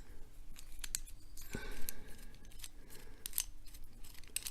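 Scattered small metallic clicks and light scrapes as a steel padlock and its parts are handled during disassembly, with a short faint scrape about one and a half seconds in.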